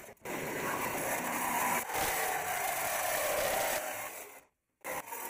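Corded reciprocating saw (Sawzall) cutting the sheet-metal rear bumper of a kei truck, a steady rasp of the blade. It dips briefly about two seconds in, cuts out for a moment near the end and starts again.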